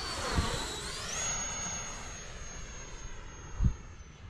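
FMS Viper 70mm electric ducted-fan jet flying past, its high fan whine dipping in pitch just before a second in, then jumping higher and holding steady. Two brief low thumps, about half a second in and near the end.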